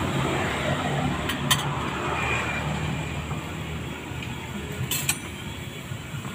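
A steel ladle clinking a couple of times against an aluminium wok of simmering seblak soup, with a few more sharp clicks later, over a steady low rumble.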